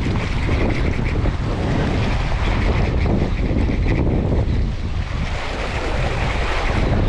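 Wind buffeting the microphone in a steady low rumble, over sea waves washing against rocks.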